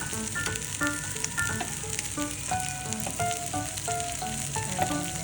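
Background music, a melody of short picked notes, over a steady sizzling hiss.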